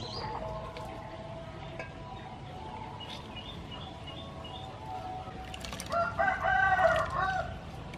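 A rooster crowing once, loudly, about six seconds in, over faint chirping of small birds.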